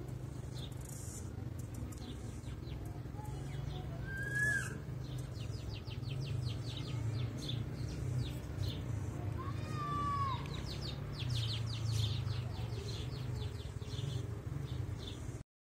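Outdoor ambience: a steady low rumble with rapid trains of small clicking chirps, and two short arching calls, one about four seconds in and one about ten seconds in. The sound cuts off abruptly just before the end.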